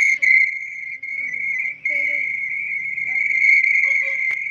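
A steady, loud high-pitched whistling tone with fainter higher overtones, dipping briefly a couple of times.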